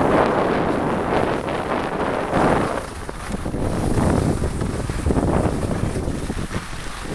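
Wind rushing over the camera microphone during a downhill ski run, mixed with the skis hissing and scraping across packed snow. The noise swells every second or two as the skier turns.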